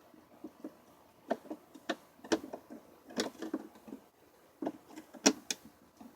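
Irregular clicks and knocks of small hard parts being handled, about a dozen sharp taps with the loudest near the end.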